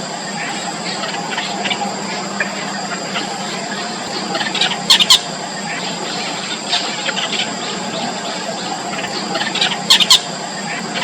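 Yellow bittern chicks calling in the nest: a run of short, high squeaky calls, with a louder burst of sharp calls about five seconds in and again near the end.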